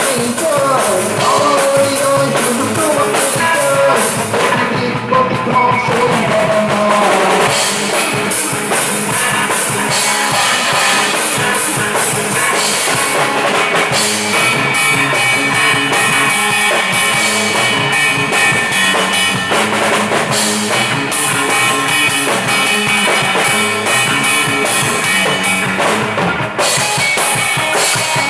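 Rock band playing an instrumental passage: a drum kit with kick drum and rimshots drives steadily under guitars. A melodic line bends in pitch during the first several seconds, and the guitars then settle into sustained chords.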